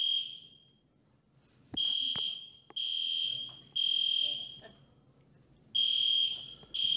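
Fire alarm sounding the temporal-three evacuation pattern: a high, steady beep three times about a second apart, a short pause, then the next group of three.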